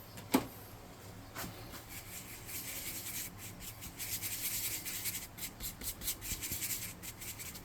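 Paintbrush bristles brushing paint onto a small plastic miniature in many quick, short, scratchy strokes, as in dry brushing. A light tap comes just after the start.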